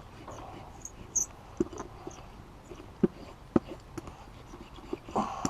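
Scattered light taps, clicks and crinkles of hands working a sheet of Dynamat Extreme sound deadener onto a panel, with a few sharper knocks about halfway through.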